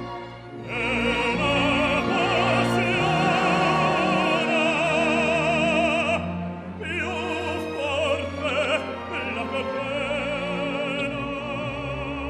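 Baritone singing a Neapolitan song with a full symphony orchestra, long notes with vibrato. The music eases off about six seconds in and builds again.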